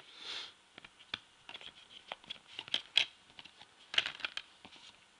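Blu-ray discs and their clear plastic disc tray handled by hand: a scatter of light plastic clicks and ticks at an uneven pace, with a brief soft rustle just after the start.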